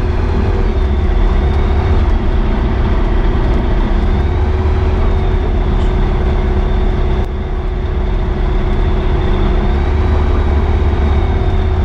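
Rotax 912 flat-four engine and propeller of a Skyranger Swift microlight running steadily at low power while taxiing on grass, heard from the open-sided cockpit: a loud, steady drone that wavers slightly in pitch.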